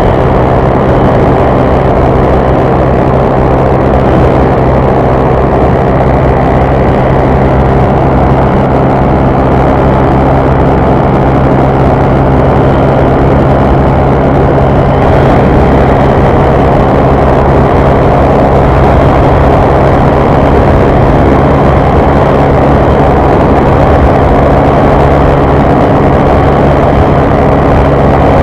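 Honda CG 150 Fan's single-cylinder four-stroke engine running hard at a steady high speed under full throttle, its pitch holding level throughout, with a steady rush of wind noise.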